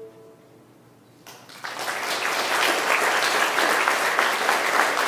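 The last held chord dies away at the very start, then after about a second's hush the audience breaks into applause that builds quickly and carries on steadily.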